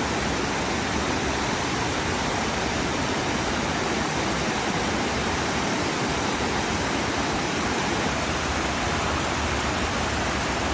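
Waterfall pouring down: a steady, even rush of falling water.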